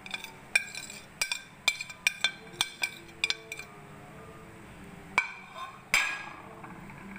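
A spoon and a ceramic plate clinking against a glass bowl as ground spices are tapped and scraped off the plate: about ten sharp clinks in quick succession over the first three and a half seconds, then two more, the last the loudest.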